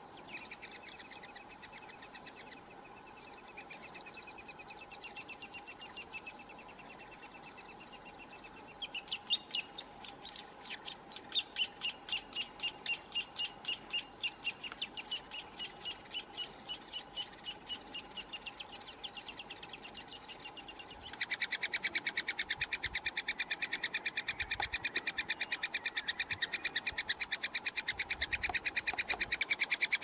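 Eurasian three-toed woodpecker nestlings begging for food from inside the nest hole: a rapid, unbroken stream of high calls. It grows louder in pulses about nine seconds in and becomes louder and denser about twenty seconds in.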